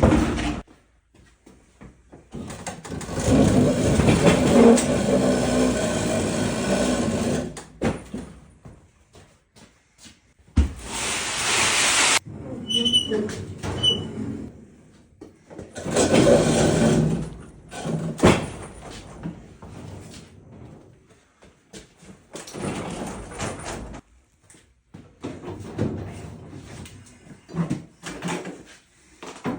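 Heavy loaded shop table being moved across the floor: long rumbling scrapes in several pushes, broken by knocks and a couple of short squeaks.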